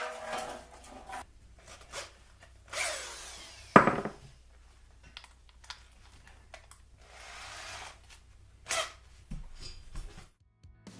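Short, separate bursts of scraping and rubbing from tools working the exhaust manifold's surfaces, with one sharp metallic knock just under four seconds in that is the loudest sound.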